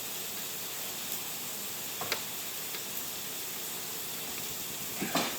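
Steady hiss of background noise, with a few faint clicks and a short louder scuff about five seconds in.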